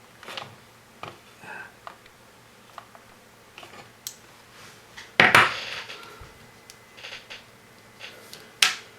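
Hands handling jumper wires and small parts: scattered light clicks and rustles, a louder clatter a little past halfway, and a sharp click near the end.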